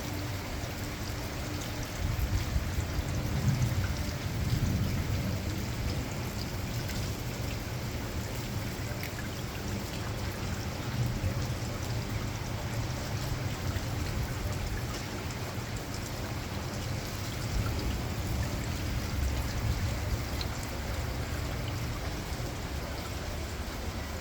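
Heavy rain pouring down steadily in a severe thunderstorm, with a low rumble swelling about two to five seconds in.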